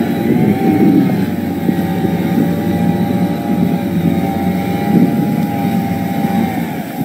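Motorboat engine running hard, with propeller wash churning the water. Its pitch dips briefly about a second in and drops near the end.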